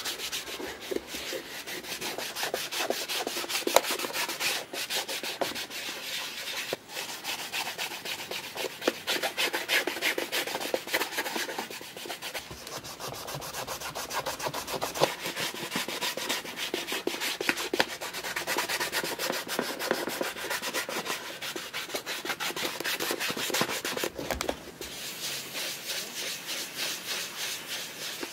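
Cotton cloth rubbing over the shell cordovan leather of an Alden 990 shoe, working in cleaning lotion: continuous quick back-and-forth strokes with a few brief pauses.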